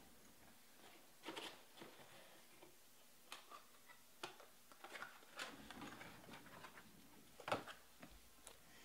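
Faint handling of trading cards: scattered soft clicks and taps, the loudest about seven and a half seconds in.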